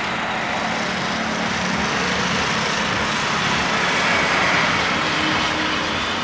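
Steady rush of road traffic, with a faint low hum in the first half.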